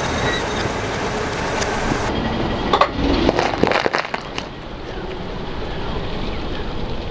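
A car tyre rolling over passion fruits, with a quick run of sharp cracks and squelches about three seconds in as the shells burst, over the steady rumble of the slow-moving car.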